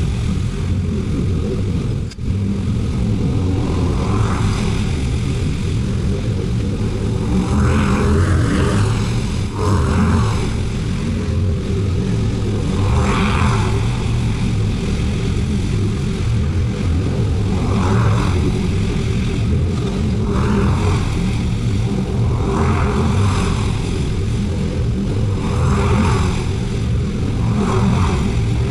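Zero-turn lawn mower's engine running steadily while it cuts overgrown grass, with a hissing swell every two to three seconds over the steady drone.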